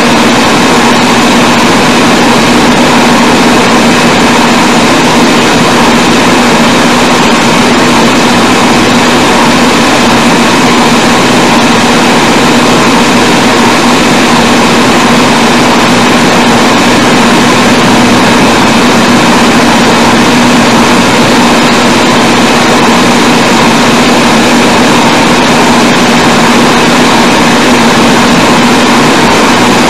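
Loud, steady hiss with a constant hum and a fainter higher steady tone, and no speech: recording noise from an old, poor-quality sermon recording.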